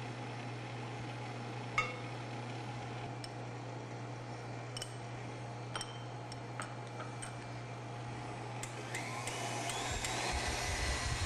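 Light clinks of a spoon on small glass bowls, then a stand mixer's motor starting and rising in pitch to a steady whine near the end as it beats the egg yolk and honey batter. A steady low hum sits beneath throughout.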